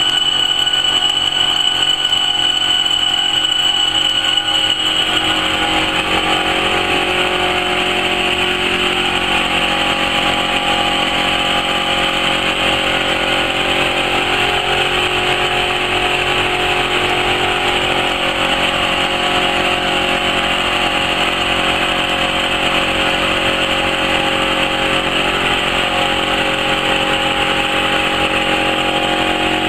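Automatic-feed laser cloth-cutting machine running steadily as its laser head traces a cutting pattern across fabric, a constant mechanical hum and hiss. A high whine fades out about five seconds in.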